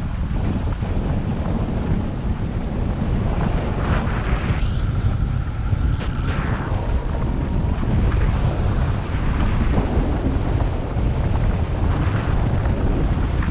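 Airflow of a hang glider in flight buffeting the wing-mounted camera's microphone: a steady, heavy wind rush with no let-up.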